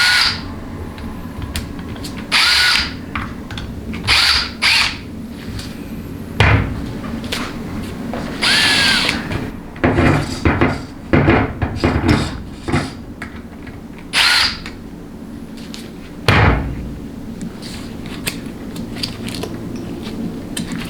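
Power driver spinning Torx bolts into a transmission valve body in about a dozen short bursts, one longer run about nine seconds in ending on a rising whine, starting the bolts that hold the solenoid pack and channel plate.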